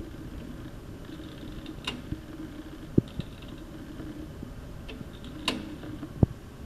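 Delta/Rockwell drill press driven by a Craftsman electric motor, running with a steady low hum, with a few sharp clicks and knocks along the way.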